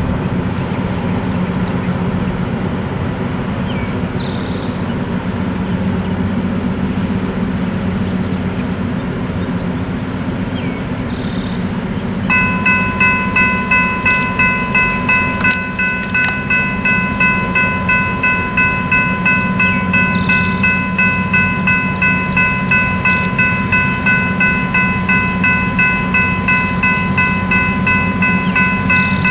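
A steady low rumble, then about 12 seconds in a General Signals Type 3 electronic crossing bell starts up as the crossing activates. It rings a bright multi-tone ding, about two to three strikes a second, without stopping.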